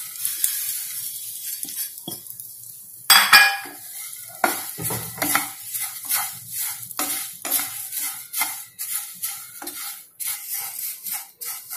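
Flattened rice (poha) poured into a pan of hot oil and turmeric, with a light sizzle at first, then stirred with a wooden spatula: a series of short scraping strokes against the pan, with a louder clatter about three seconds in.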